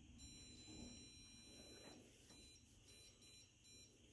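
Near silence: faint room tone with a thin, steady high-pitched whine.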